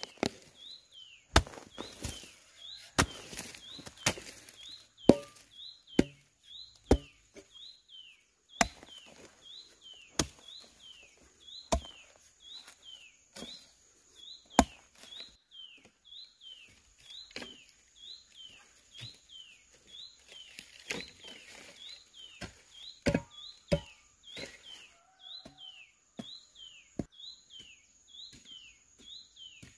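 A metal hoe blade chopping into dry, clumpy soil, a sharp thud every second or two. A bird repeats a short chirp at an even pace in the background.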